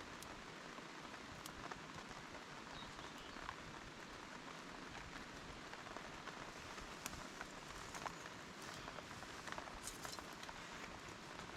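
Steady rain falling, a soft even hiss with scattered sharp drip-like ticks that come more often in the second half.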